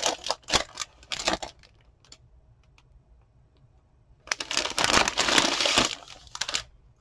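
Clear plastic packaging bag crinkling and rustling as wooden album pieces are pulled out of it: short crinkles for the first second and a half, a pause, then a longer stretch of rustling from about four seconds in.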